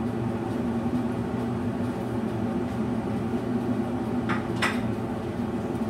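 Steady low hum of kitchen machinery, with two quick clacks close together about four and a half seconds in.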